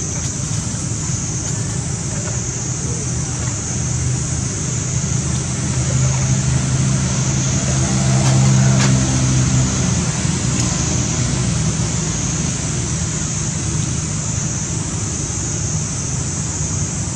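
A motor vehicle's engine passing close by, swelling to its loudest about eight seconds in and fading soon after, over a constant high-pitched hiss of outdoor background noise.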